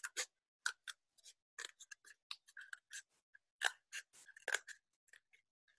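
Scissors snipping into a cardboard toilet-roll tube, a faint run of short, irregular snips as a round hole is cut out.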